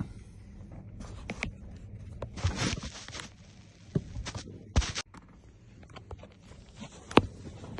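Tools being handled: irregular scraping and rustling with a few sharp clicks, the loudest near the end.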